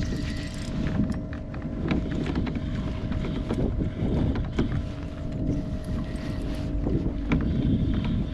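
Wind buffeting the microphone on a kayak out on the water, with a faint steady hum and scattered clicks and knocks.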